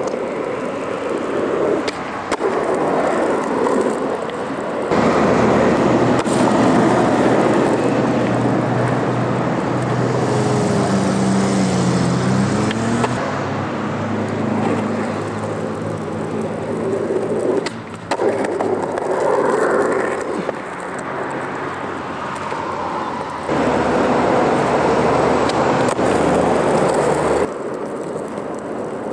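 Skateboard wheels rolling over rough asphalt: a continuous gritty rumble that swells and eases as the rider pushes and coasts, with a low engine-like hum underneath through the middle stretch.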